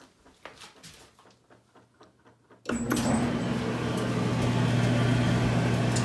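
An old Whirlpool electric clothes dryer starting up about two and a half seconds in, after a few faint clicks. The drum motor and blower then run steadily with a low hum and a rush of air. It is being run briefly with its failed thermal switch jumpered out, to test whether the heating coils still make heat.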